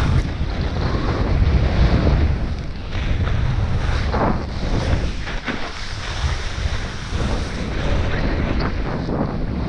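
Wind buffeting the microphone as a snowboard rides fast through deep powder, with a rushing hiss that swells several times as the board's turns spray snow.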